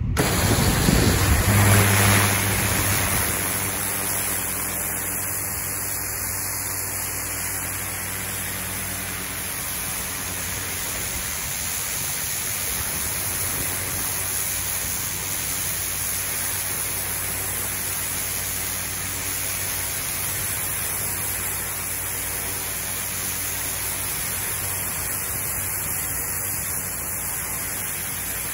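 Pressure washer spraying through a turbo nozzle onto a concrete patio: a steady hiss of high-pressure water striking the concrete with a low hum underneath, loudest in the first two seconds as the spray starts.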